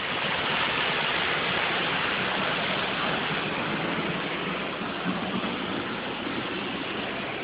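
Waterfall: the steady rush of falling water, loud and unbroken.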